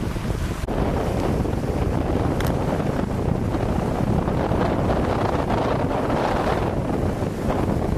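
Strong wind, 25 to 30 knots, buffeting the microphone over choppy water splashing. The splashing grows stronger from about four seconds in to about seven.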